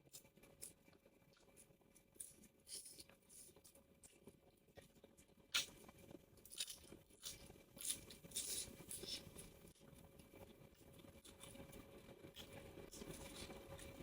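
Faint sounds of someone eating, chewing and crunching with scattered small clicks and crackles. The loudest click comes a little before the middle.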